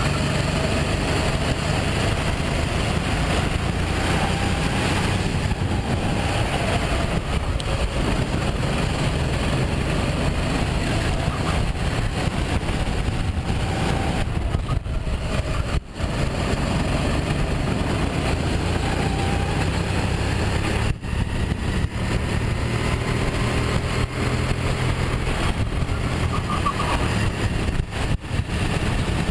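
Sodi RT8 rental kart's single-cylinder engine running at racing speed, heard from the onboard camera, with its revs rising and falling through the corners. The level dips briefly a few times.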